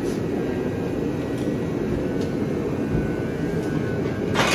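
Steady low rushing background noise, with a few faint clicks and a sharper metallic clink near the end as strongman gear is handled.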